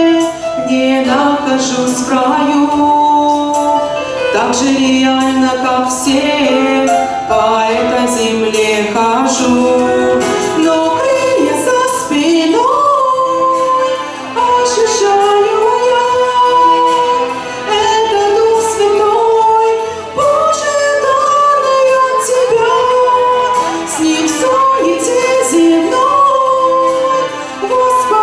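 A woman singing a worship song with musical accompaniment.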